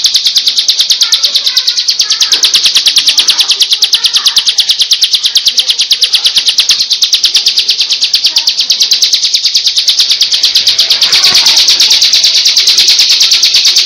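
Bar-winged prinia (ciblek) singing its 'ngebren' song: a fast, unbroken run of high, evenly spaced chipping notes, about eight a second, that cuts off abruptly at the very end.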